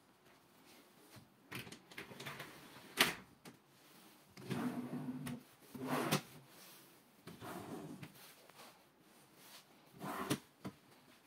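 IKEA PAX wardrobe drawers being pulled out and pushed back in, several separate slides and knocks with a sharp knock about three seconds in.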